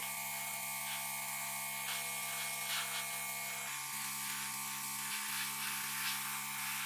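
A small electric power tool's motor running steadily with a buzzing hum, its pitch shifting slightly partway through, with faint scratchy contacts now and then.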